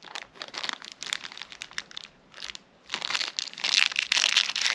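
Packaging being handled, crinkling in irregular runs of small crackles; it eases off about two seconds in, then picks up more densely a second later.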